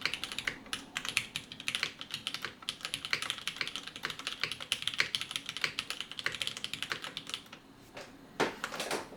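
Fast, continuous typing on a custom aluminium-cased mechanical keyboard with Cherry MX Black linear switches. The key strokes stop about seven and a half seconds in, and a single louder, longer noise follows near the end.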